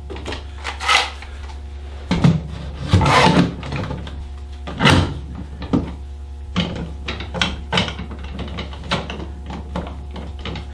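Bessey K Body bar clamps being handled and fitted onto a wooden glue-up form: jaws sliding and clacking along the steel bars and knocking against the wood, in a string of irregular knocks and rubbing sounds. A steady low hum runs underneath.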